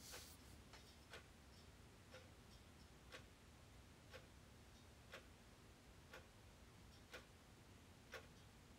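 Faint clock ticking, evenly about once a second.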